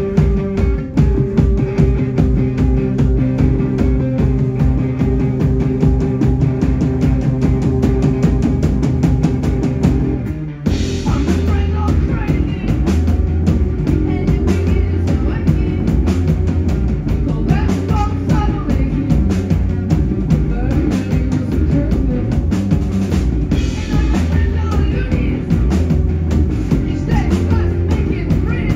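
A live rock band plays: a drum kit keeps a steady beat under an electric guitar and held chords. About ten seconds in the band drops out for a moment, then comes back with a woman singing over it and a heavier bass line.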